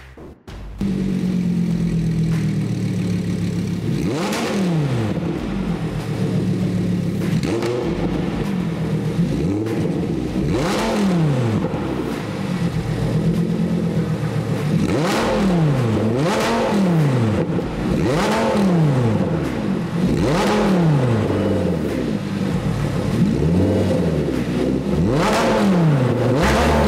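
Audi R8 V10 engine idling through an aftermarket valve-controlled exhaust, blipped about nine times. Each blip is a quick rev up and straight back down to idle, and the sound starts just under a second in.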